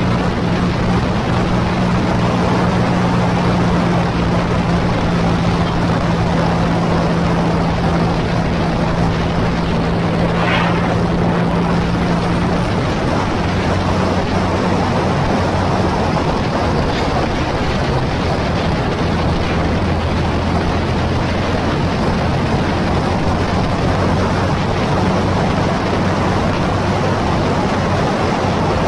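Motorcycle engine running at road speed under heavy wind rush on the onboard microphone. The engine note steps lower about halfway through and again a few seconds later.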